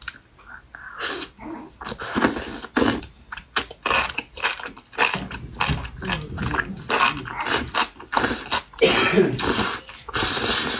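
Close-miked slurping of saucy enoki mushroom strands, an irregular run of wet sucking bursts that grows denser and louder near the end.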